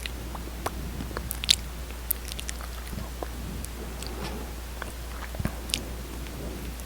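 Close-miked wet lip and mouth sounds: soft, irregular lip smacks and small sticky clicks, a few a second, as lip oil is worked over the lips.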